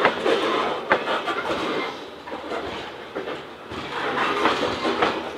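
Freight train of covered hopper cars rolling past, its steel wheels rumbling on the rails, with sharp clacks at the start and about a second in.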